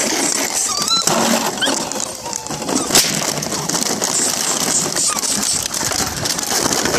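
Empty plastic water and soda bottles crackling and clattering continuously as Belgian Malinois puppies walk and scramble over them, with a sharper clack about three seconds in. A few brief high squeaks come through the clatter.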